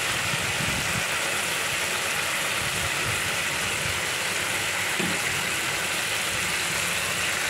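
Spice paste and potatoes frying in oil in an iron kadai, a steady sizzling hiss; the oil is separating at the edges, the sign that the masala is fully sautéed.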